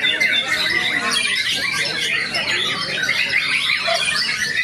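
White-rumped shama singing a fast, unbroken run of varied whistles and chattering notes.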